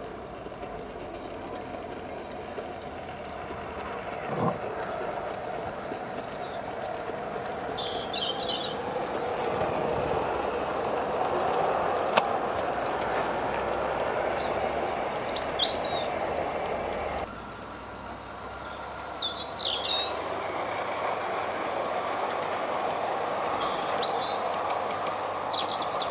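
Gauge 0 model train, a B1 locomotive hauling Pullman coaches, running along the garden track: a steady rumble of wheels on rail that grows louder as the train draws near, breaks off suddenly a little past halfway and picks up again. Birds chirp now and then over it.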